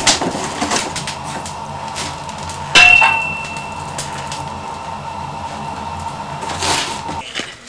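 Wood fire in an open wood stove, crackling and knocking as the logs are tended. About three seconds in, a loud clang of metal on the stove rings briefly.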